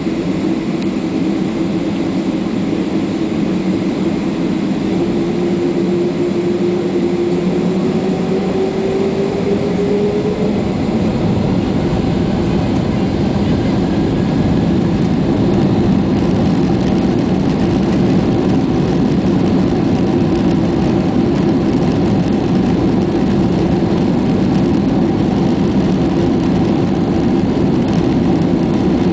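Boeing 767-300's jet engines heard from inside the cabin, spooling up to takeoff thrust: a whine rises in pitch between about five and ten seconds in, then a loud steady roar and rumble that grows as the aircraft accelerates along the runway on its takeoff roll.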